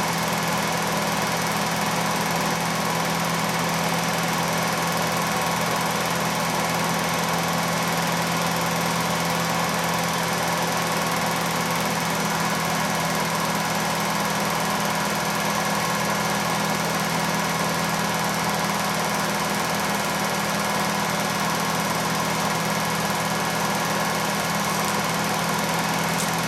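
Home-movie film projector running: a steady motor hum with the whir of the film transport.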